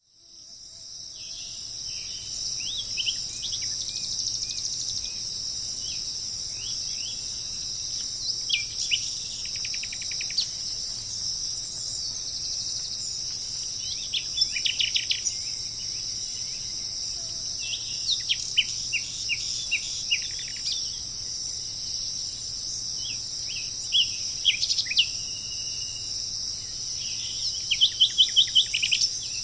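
Songbirds chirping in scattered clusters, some phrases fast trills, over a steady high-pitched insect chorus of crickets. The sound fades in over the first couple of seconds.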